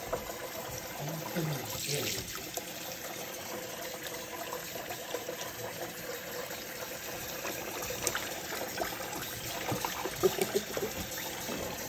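Tap water running steadily into a plastic basin in a sink, splashing over a small dog being rinsed.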